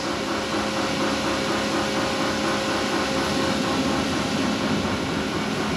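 CNC tool and cutter grinder running steadily: a constant machine hum with a faint steady tone through it.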